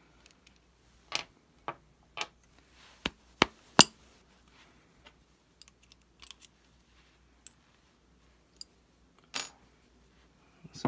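Small metal parts of a PCP air rifle's valve assembly clinking and clicking as they are worked apart by hand and with a small wrench. A quick run of sharp clicks in the first four seconds, then a few scattered ones.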